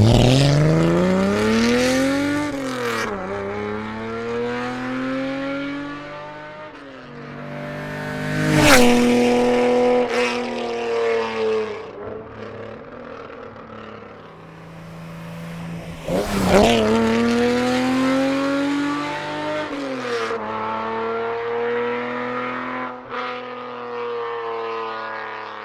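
1973 Datsun 240Z's straight-six engine under way, driving past several times. Its pitch climbs on each approach, peaks loudest as the car goes by, about nine seconds in and again about sixteen seconds in, and falls away after each pass.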